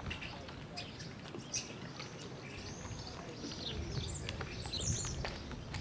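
Small birds chirping and twittering over and over, with short calls sweeping down in pitch, above a low background rumble that grows louder in the second half.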